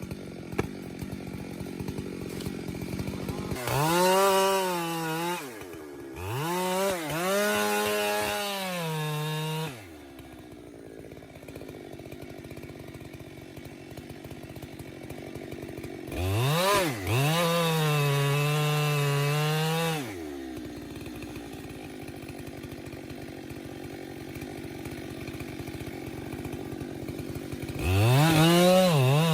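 Two-stroke chainsaw revved up to full throttle four times, each burst held for a few seconds with the pitch sagging a little, as when the chain bites into wood. Between the bursts it drops back to a quieter idle.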